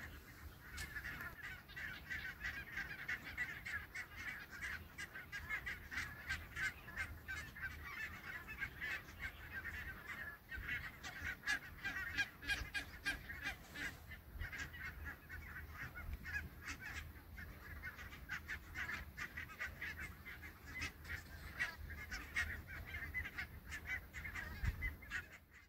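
A large flock of barnacle geese calling: a dense, continuous chorus of many short, overlapping honks.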